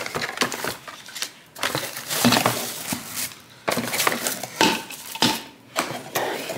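Cardboard box flaps and plastic wrapping rustling and crinkling as bottles are lifted out of a shipping box, with a few light knocks as they are set down on the counter.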